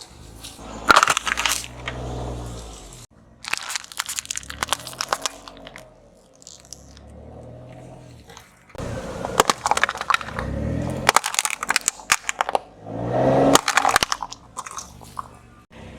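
A car's tyres rolling over drink cans, crushing and cracking the aluminium in bursts of sharp crunches. The car's engine rises in pitch twice as it pulls forward, about nine and thirteen seconds in.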